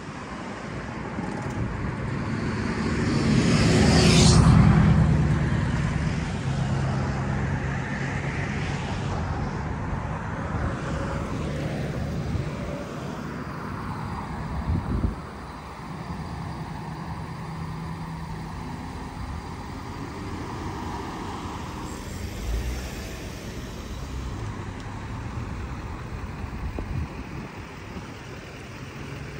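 Street traffic at a town intersection: a car passes close about four seconds in, rising and then fading, followed by engines running and cars moving through at a lower, steady level. A brief thump about fifteen seconds in.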